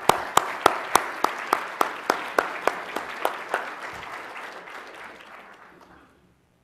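Audience applause with one person clapping loudly and evenly close to the microphone, about three claps a second, for the first three and a half seconds. The applause then dies away near the end.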